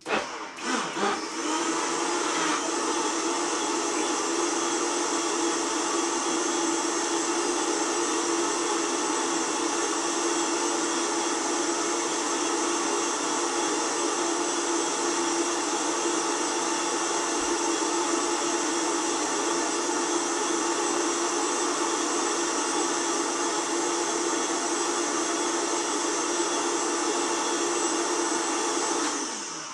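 Countertop blender motor running at high speed, puréeing a raw vegetable soup. It starts abruptly, is uneven for the first couple of seconds, then runs at a steady pitch for almost half a minute before winding down at the end.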